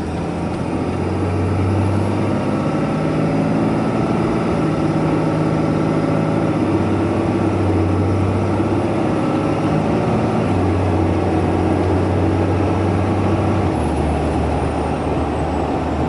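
Cab interior of a 2012 Ram 2500 pickup as it is driven: the Cummins 6.7-litre inline-six turbo-diesel drones steadily under road noise. Its low note shifts a few times as speed and throttle change.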